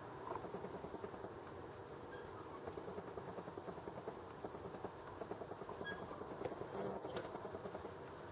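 Nikon P500 zoom lens motor whirring unevenly, with scattered small clicks.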